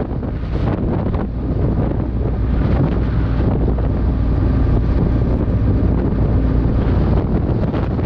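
Wind buffeting the microphone of a car-mounted GoPro Hero 5 while the car is driven: a steady, heavy low rumble with the car's road and engine noise beneath it.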